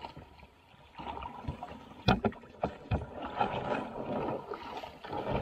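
Feet splashing through shallow water and crunching onto gravel as a plastic kayak is dragged up the bank, its hull scraping over the stones. A few sharp knocks come about two to three seconds in.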